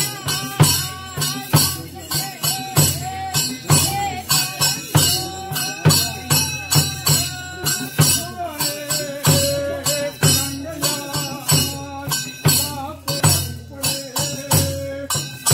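Music with a steady beat of drum and jingling percussion, about two strikes a second, under a wavering melody.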